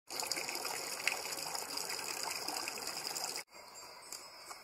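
Water splashing steadily as a jet from a fountain's metal spout falls into a stone basin. About three and a half seconds in the sound cuts off suddenly to quieter outdoor sound with a few faint clops of a horse's hooves on gravel.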